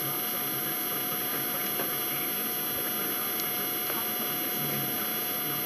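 Steady room hum and hiss, with no distinct events.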